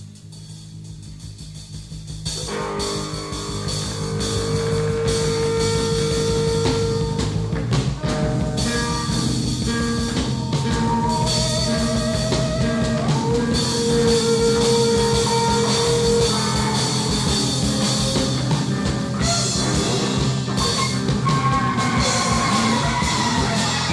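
Live noise-rock band music: drum kit and guitar playing over held droning tones. It swells from fairly quiet to loud over the first few seconds, then stays dense.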